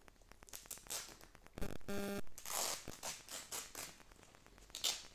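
Velcro on a doll's jacket being pulled apart, with the cloth rustling and tearing sounds in short bursts. A knock and a brief steady tone come about two seconds in.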